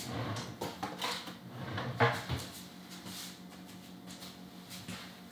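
Kitchen handling sounds: irregular knocks and clatter of things being picked up and set down, with one sharp knock about two seconds in, over a faint steady low hum.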